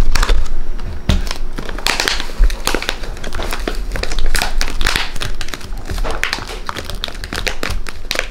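Stiff plastic pouch of superabsorbent polymer powder crinkling as it is handled, with dense crackles throughout.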